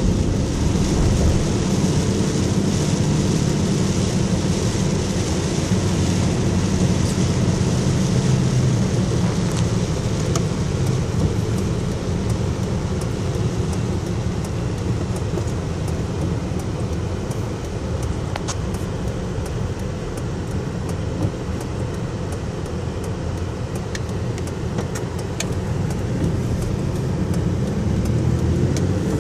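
Steady cabin noise of a vehicle driving on wet pavement: low engine and tyre rumble with a hiss of tyre spray that eases after the first several seconds. A few light ticks are heard here and there.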